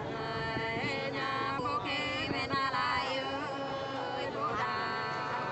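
Unaccompanied Nùng sli folk singing: a voice drawing out long, wavering notes, with a short pause between phrases about four and a half seconds in.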